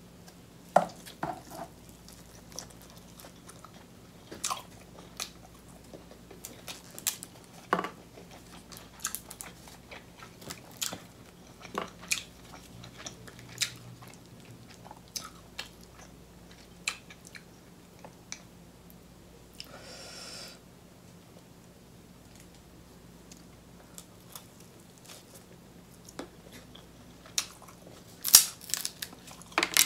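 Close-miked chewing of king crab meat dipped in cheese sauce, with scattered wet mouth clicks and smacks. Near the end come a few sharp cracks as an oven-crisped king crab leg shell is broken apart by hand.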